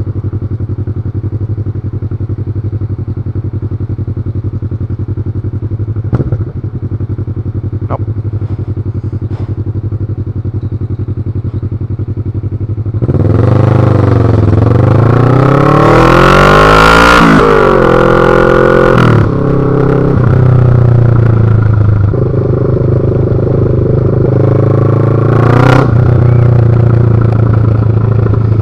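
Kawasaki Ninja 650R (ER-6f) parallel-twin engine with its exhaust silencer removed, idling steadily for about thirteen seconds. It then revs hard as the bike pulls away, rising in pitch through two or three gear changes before settling into a steady loud run, with one sharp pop near the end.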